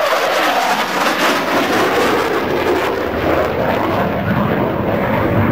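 Loud, steady jet noise from an F-18 Hornet's twin turbofan engines during and just after a high-speed pass.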